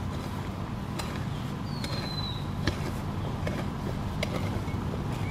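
A long-handled digging spade striking and scraping soil while backfilling around a transplanted banana plant: a few dull strikes, roughly one every second and a half, over a steady low hum. A bird gives a short falling whistle about two seconds in.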